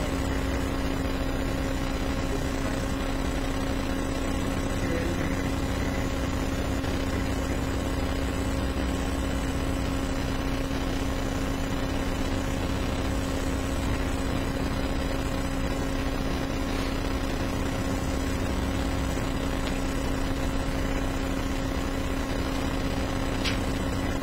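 Steady room tone: a constant hiss with an unchanging electrical hum, no other events.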